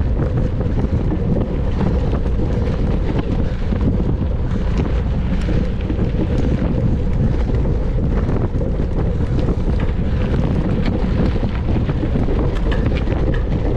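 Wind buffeting the microphone of a camera on a mountain bike ridden fast: a steady, loud, low rumble, with faint scattered clicks and rattles through it.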